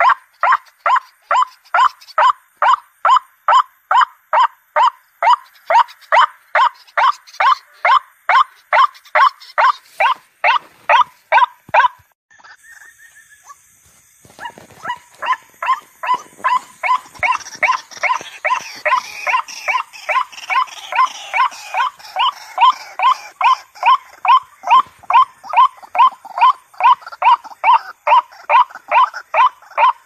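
White-breasted waterhen calling: a loud, rhythmic series of harsh 'ruak' notes, about two a second. The series breaks off about twelve seconds in and starts again some two seconds later over a steady high background hiss.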